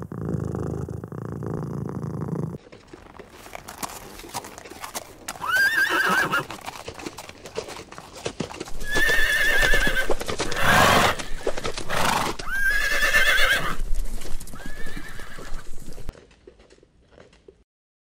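A cat purring for the first couple of seconds, then zebras sparring. They give about four whinnying calls that rise and waver, with hoof thuds between them, loudest in the middle. It all stops about two seconds before the end.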